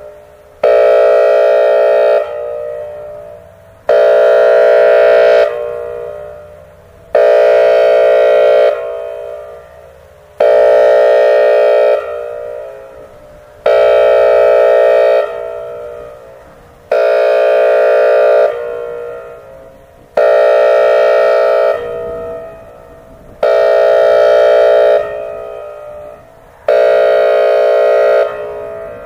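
Whelen WPS-2910 electronic outdoor warning siren sounding its air horn signal: nine loud, steady-pitched horn blasts about 1.5 s long, one roughly every three seconds, each dying away with an echo. The air horn is the siren system's all-clear signal and closes the monthly test.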